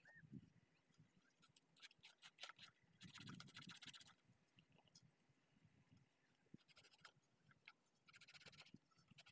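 Faint scratching and light clicking in short bursts: a hand cleaning the brush contacts and terminals of a center pivot irrigation collector ring.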